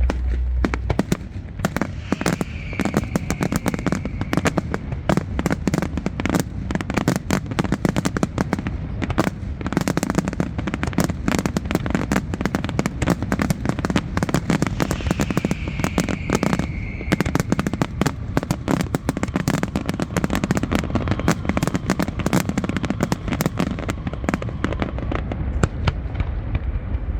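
Fireworks display: a dense, continuous run of bangs and crackles, with a falling whistle twice, once a couple of seconds in and again just past the middle.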